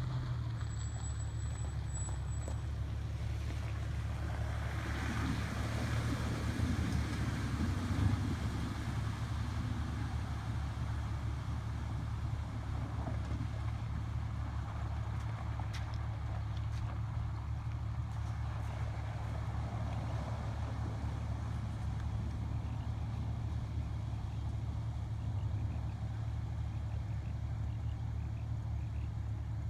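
Off-road 4x4 vehicle engine running steadily, with a low rumble throughout and louder passages a few seconds in and again about two-thirds of the way through.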